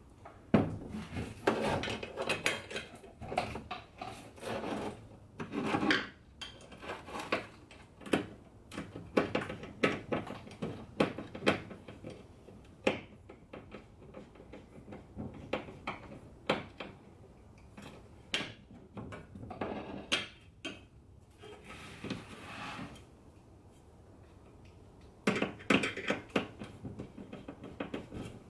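Small screws and nuts being tightened to fasten a taillight resistor to its metal bracket: irregular clicks, taps and scraping rubs of small metal parts and a tool, in short clusters with brief pauses.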